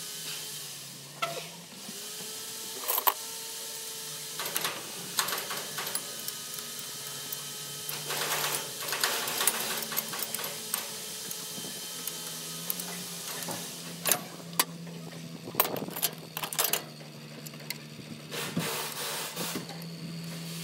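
Hand tools and metal parts clinking, knocking and scraping as bolts and brackets are worked on around an engine's alternator, in irregular short strikes with a longer scrape about a third of the way through, over a steady low hum.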